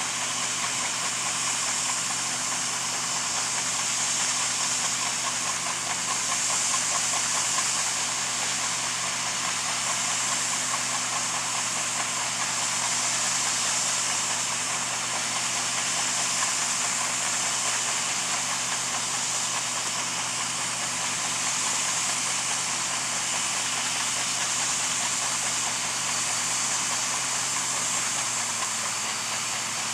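Large John Deere diesel farm machinery running steadily under a strong, even hiss. The engine note drops slightly near the end.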